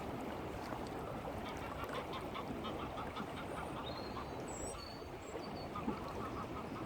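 Ducks quacking in two runs of short repeated calls, over a steady background hiss.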